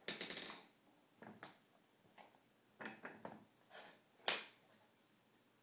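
A child's toy hammer tapping: a sharp knock at the start, a few faint taps, then another sharp knock about four seconds in.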